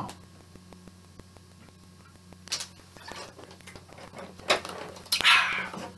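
A man drinking from a large plastic water bottle and then handling it, heard as a few short noises and a longer noisy sound near the end. Under it runs a steady string of faint clicks, a fault in the recording.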